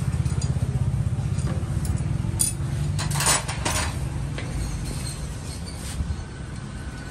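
A small engine running nearby with a fast, even putter that fades after about two seconds. Over it, metal parts clink and packing plastic rustles as parts are handled, loudest around three seconds in.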